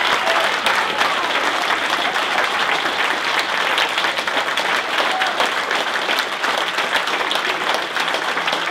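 Audience applauding: dense, steady clapping from a roomful of people, with a few voices calling out among it.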